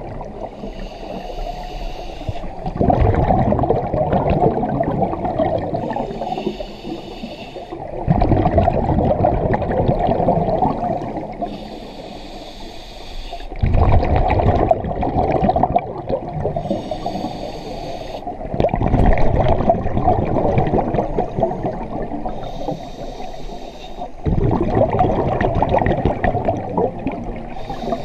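Scuba diver breathing underwater through a regulator in a slow, even rhythm: a hissing inhale, then a loud gurgle of exhaled bubbles, about five breaths.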